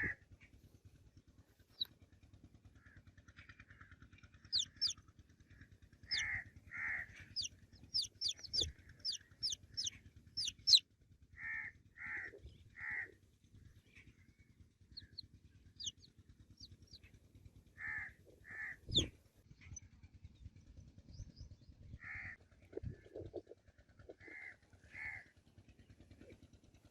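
Baby chicks peeping: short, high notes that fall quickly, coming in quick runs. A second kind of bird call, lower and harsher, breaks in now and then in groups of two or three.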